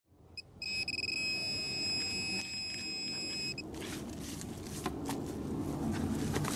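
A handheld metal-detecting pinpointer gives a short beep, then a continuous high alert tone that pulses quickly at first and lasts about three seconds as its tip is held over a buried metal target. It cuts off, and hands brush and scrape soil off the buried object, with a few light clicks.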